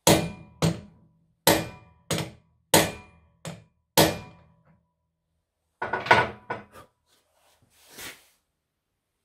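Hand hammer striking a metal drift held on the hub of a 1924 Bugatti Brescia clutch: seven evenly spaced blows in the first four seconds, each with a short metallic ring, then a quicker run of about six blows around six seconds in.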